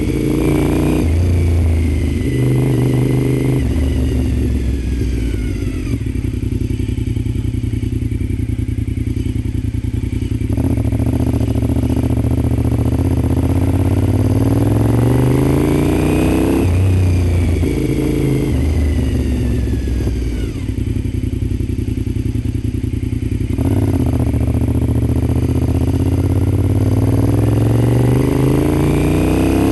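Honda RC51's V-twin engine under way, heard from on the bike: short rises and drops in revs through gear changes, then long rising pulls as it accelerates in the middle and again near the end, with a sudden drop in revs between them.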